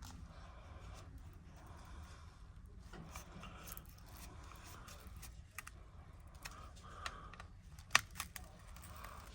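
Faint scraping and small clicks of a pry tool working under the edge of a Samsung Galaxy Tab S6 Lite's LCD as the adhesive releases, with one sharper click about eight seconds in, over a low hum.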